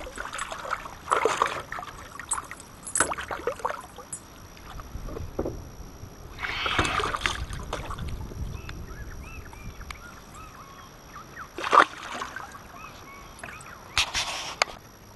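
A released golden perch splashing back into the water beside a small fishing boat, followed by intermittent splashes, knocks and rubbing against the boat and camera, with a sharp knock about twelve seconds in.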